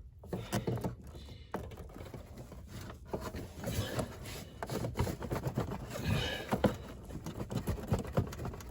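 Irregular light clicks, taps and scrapes of small screws and a hand tool being handled and worked into a panel.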